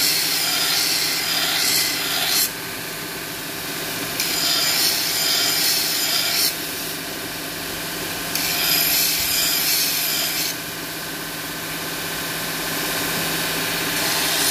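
Belt grinder running with a steady hum while a knife is pressed against the moving abrasive belt three times, each pass a harsh grinding noise of about two seconds that stops when the knife is lifted away.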